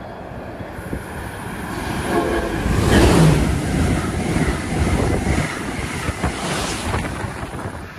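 Amtrak Acela electric trainset passing at speed close by, a rush of wheel and wind noise that builds to its loudest about three seconds in and stays loud as the cars go by.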